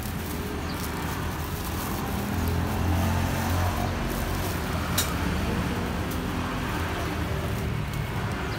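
Road traffic going by, a steady low engine rumble that swells about two and a half to three and a half seconds in as a vehicle passes close, with one sharp click about five seconds in.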